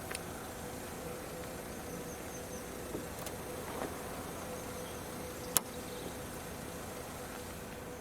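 Car bonnet being swung up to its fully open position after its hinge release button is pressed: a few light clicks and one sharp click about five and a half seconds in, over a steady background hum.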